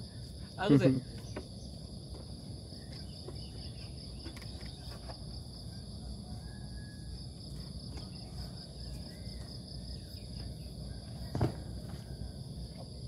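Steady insect chorus, a continuous high buzz with two even pitches. A person's short call cuts in about a second in, and there is a brief dull thump near the end.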